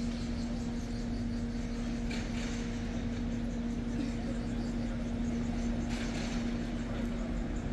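Alstom Citadis tram heard from the cab: a steady electrical hum at one unchanging pitch over a constant low rumble, with a few faint brief higher sounds.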